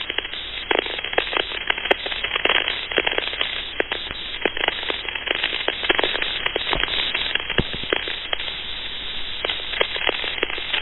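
Crackling static with many irregular clicks over a UHF CB radio channel, heard through the radio's narrow, band-limited audio.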